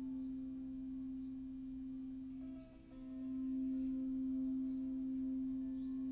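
Crystal alchemy singing bowl sung by circling a mallet around its rim, holding one steady low tone with faint higher overtones. The tone dips briefly a little under three seconds in, then swells back up.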